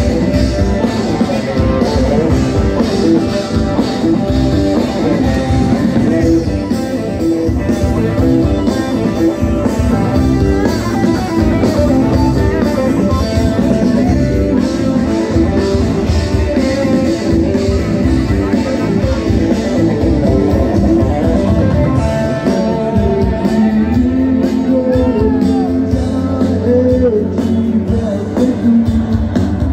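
Loud rock music with electric guitar and drums keeping a steady beat; a singer's voice stands out from about three quarters of the way in.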